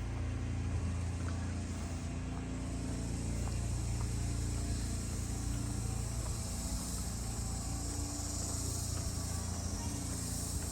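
Cicadas buzzing in a steady high drone that swells from about three seconds in, over a low, steady motor hum.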